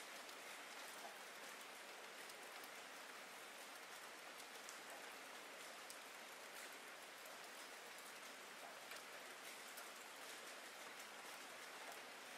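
Faint, steady rain: an even hiss with many small drop ticks scattered through it.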